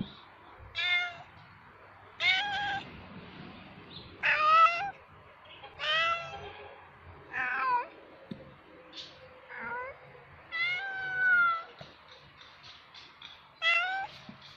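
A male cat meowing over and over, about eight drawn-out calls a second or two apart, several falling in pitch and one longer call a little past the middle: a tomcat calling to attract females for mating.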